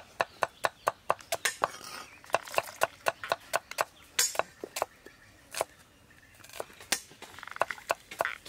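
Knives chopping on wooden cutting boards: rapid, irregular sharp knocks, several a second, with a short lull about six seconds in.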